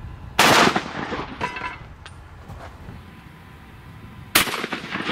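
12-gauge pump shotgun firing a slug: two sharp, loud reports about four seconds apart, each trailing off in a short echo.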